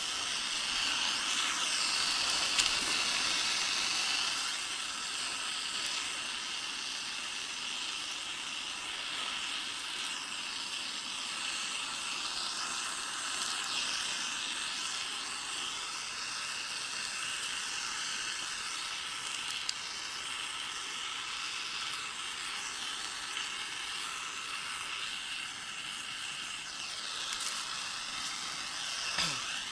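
Handheld gas torch hissing steadily as its flame singes the remaining down and pinfeathers off a freshly plucked drake.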